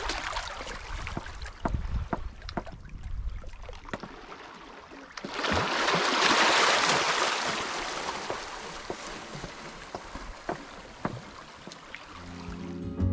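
Shallow seawater lapping and gurgling around shore rocks, with a louder rush of washing water about five seconds in that fades over the next few seconds. Scattered sharp knocks of a hand-held rock striking oyster-covered rocks.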